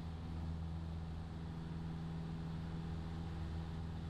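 Piper Cherokee Warrior's four-cylinder piston engine and propeller running steadily in flight, heard as a constant low hum inside the cabin.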